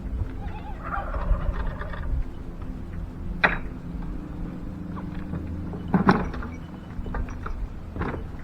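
A turkey gobbling, with a few sharp knocks at intervals over a steady low hum.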